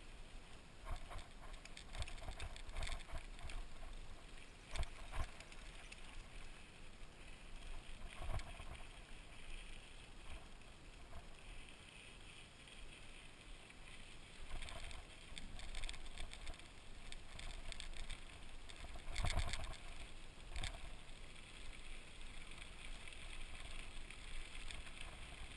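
Mountain bike rolling along a dirt trail: steady tyre and ground rumble, broken by irregular knocks and rattles as the bike goes over bumps.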